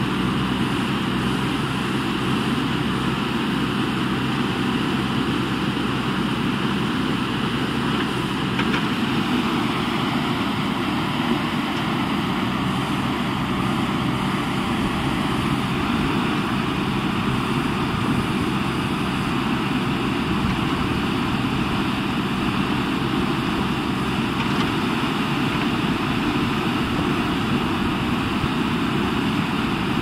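JCB backhoe loader's diesel engine running steadily, a constant low machine noise with no marked revving or knocks.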